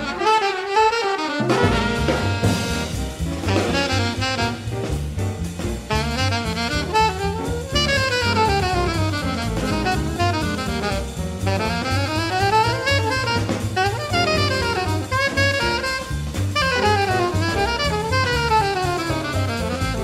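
Small bebop jazz band playing live: near the start the bass and drums drop out for about a second, then an alto saxophone solos in fast runs sweeping up and down over walking upright bass and drum kit.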